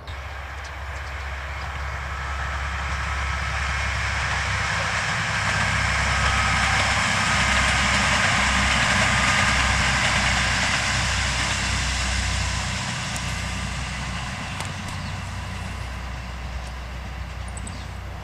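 A vehicle passing by: a low rumble with a rushing noise that swells to its loudest about halfway through and then slowly fades.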